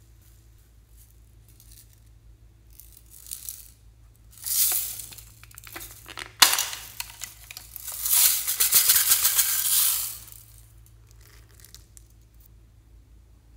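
Small foam beads poured and shaken out of plastic containers into a glass dish full of beads, with a rattling hiss. There are a few short spells of it, then a sharp click, then about two seconds of dense, fast rattling.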